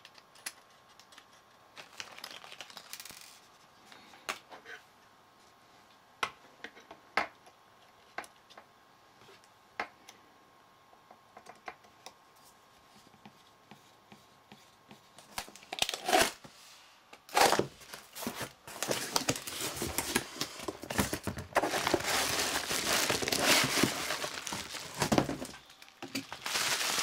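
Scattered small clicks and taps from handling a graphics card and a small screwdriver, then, from about halfway through, loud crinkling of bubble wrap being handled.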